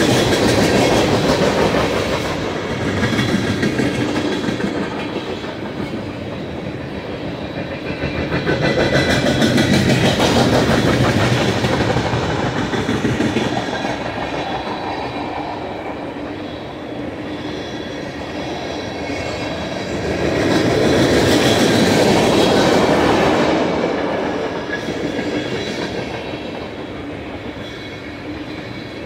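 Empty tank cars of a long freight train rolling past, with a steady clickety-clack of wheels over rail joints. The rolling noise swells and fades in waves, loudest near the start, about ten seconds in and about twenty-two seconds in.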